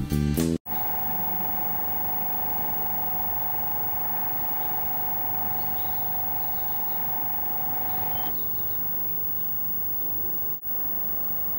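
Renfe series 313 diesel-electric locomotive standing with its machinery running: a steady whine over a hiss. The whine stops about eight seconds in, leaving the hiss and faint bird chirps. Guitar music cuts off just after the start.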